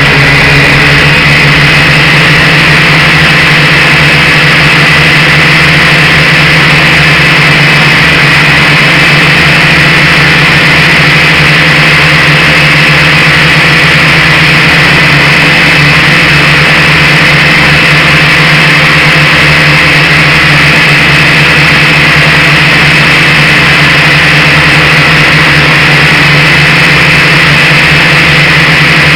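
Quadcopter drone's motors and propellers running steadily in flight: a loud, even hum with a high whine above it, holding one pitch throughout.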